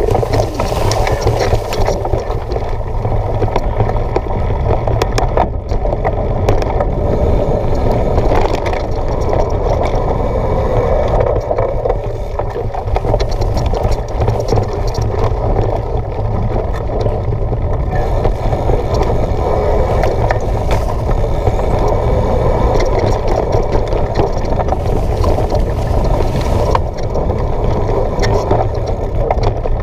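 Mountain bike riding fast on a dirt forest trail: a continuous rumble of tyres rolling over earth and leaves, mixed with wind buffeting the microphone, and a few sharp rattles from the bike.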